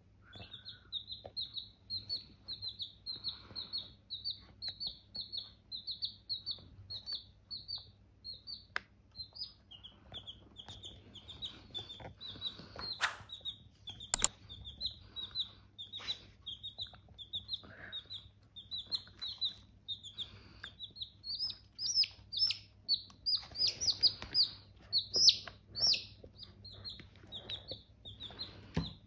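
Two domestic chicks peeping without pause, a run of short high cheeps two or three a second, louder and busier in the second half. A couple of sharp clicks come about halfway through.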